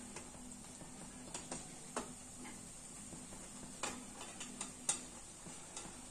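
Scattered light metal clicks and taps, about half a dozen, of a steel slotted spoon knocking against the kadhai as fried koftas are scooped out of the oil, over a faint steady hum.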